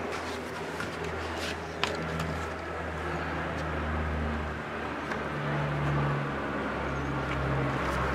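A low, steady motor drone with a slightly shifting pitch in the background, with a couple of sharp knocks as a plastic bucket is handled and set down on a plywood bench, and light rubbing from marking inside it.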